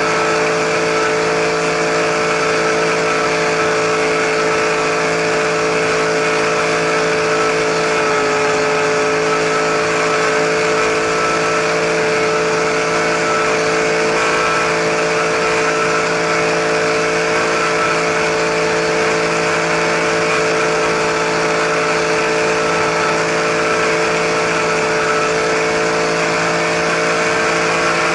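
RC helicopter's motor and rotor heard from a camera mounted on the helicopter in flight: a steady, constant-pitch whine with rushing air hiss.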